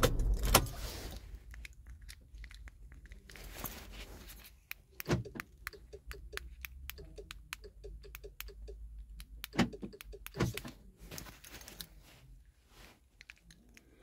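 Keys on a ring jangling and clicking as a Volkswagen flip-out remote key is handled, with a few sharper clicks standing out.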